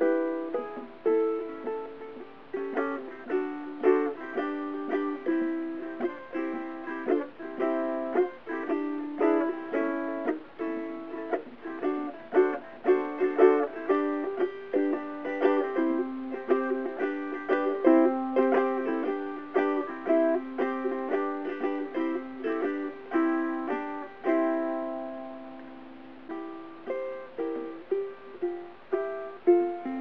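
Covered Bridge tenor ukulele with a redwood top and myrtle body, played solo in a blues style: a steady run of plucked single notes and chords. About twenty-five seconds in, a chord is left to ring out for a couple of seconds before the playing picks up again.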